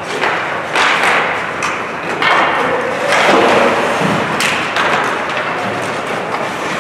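Ice hockey play: skate blades scraping the ice and sticks and puck knocking, with several sudden thuds and scrapes.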